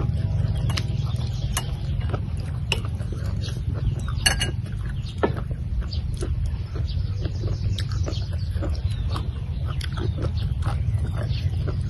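Close-up eating sounds of people chewing fried earthstar mushrooms: short mouth clicks and smacks at irregular intervals, with one sharper click about four seconds in, over a steady low rumble.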